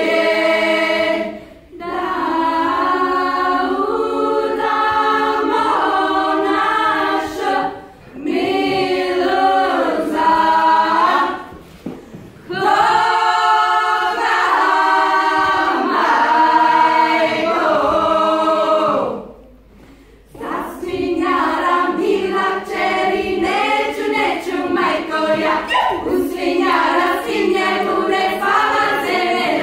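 Women's a cappella choir singing a Croatian folk song, in phrases broken by short breath pauses, the longest about two-thirds of the way through; after it the notes come quicker and choppier.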